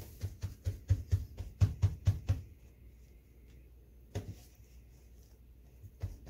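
Hands dabbing paper towels onto raw mackerel fillets on a countertop: a quick run of dull thuds with paper rustling for the first couple of seconds, then a single thud about four seconds in and a few more near the end.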